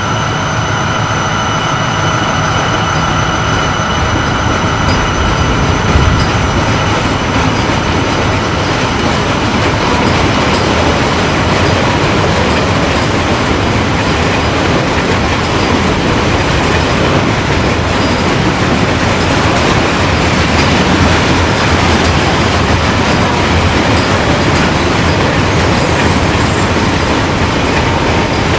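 Norfolk Southern freight train's cars rolling past, a loud, steady wheel-on-rail rumble with clickety-clack over the rail joints. A few thin high squealing tones from the wheels sound in the first several seconds and then fade.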